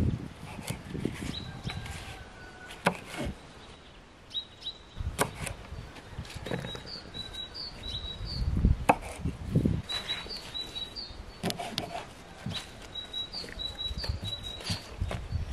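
Kitchen knife cutting sorrel leaves on a wooden board, irregular knocks of the blade on the wood. Small birds chirp in short bursts in the background.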